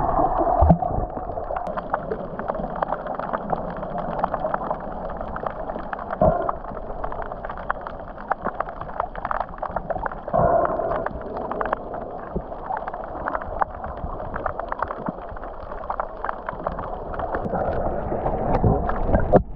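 Underwater water noise picked up by a submerged camera: a muffled, steady rushing and gurgling with many small crackles and clicks of bubbles, swelling louder a few times as the swimmers move through the water.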